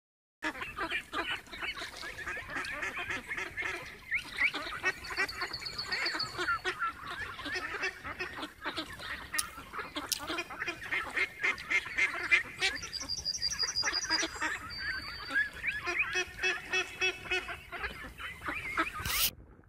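A flock of ducks calling on the water: a dense, continuous run of quacks and chatter that stops suddenly near the end.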